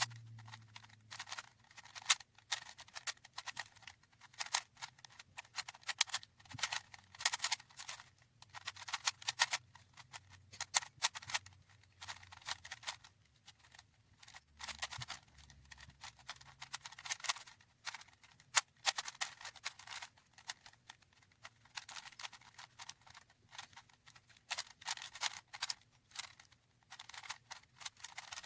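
Plastic 4x4 Rubik's cube being turned over and over, its layers clicking and rattling in quick, irregular clusters.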